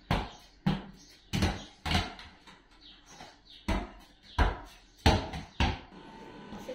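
A ball bouncing repeatedly, about eight bounces with a pause of a second or so in the middle.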